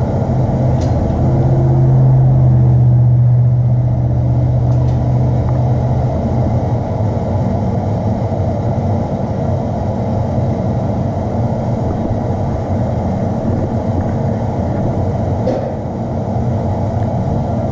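Blacksmith's forge running, a steady low rushing sound, with a low hum in the first few seconds, as a small iron piece is heated just enough to melt wax onto it.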